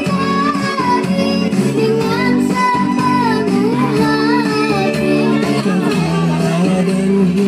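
A child's voice singing sholawat, an Islamic devotional song praising the Prophet, over steady held instrumental chords.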